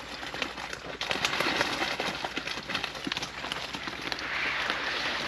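Freshly caught fish being handled and flapping, an irregular run of slaps and knocks.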